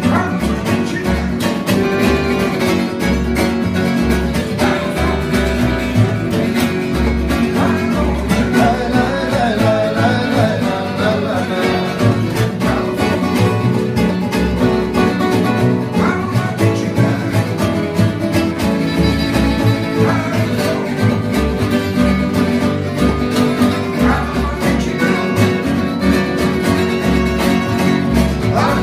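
Gypsy jazz band playing live: acoustic guitars strumming a steady rhythm and picking melody lines over a double bass and accordion, with a man singing in Romani for a stretch partway through.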